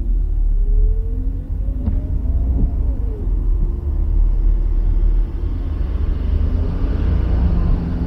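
Car driving on a wet road: a steady, deep road rumble with a lighter hiss of rain and wet tyres over it. A brief click about two seconds in.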